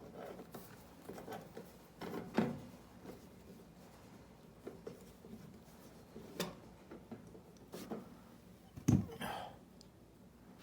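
Scattered clicks and knocks of a space heater's casing and parts being handled while it is taken apart, a handful of separate knocks with the loudest, dullest one near the end.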